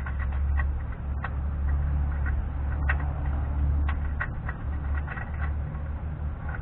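Scattered light metallic clicks and clinks of a Dana 44 front hub's bearing lock nut and pinned locking ring being handled and fitted onto the spindle, over a steady low hum.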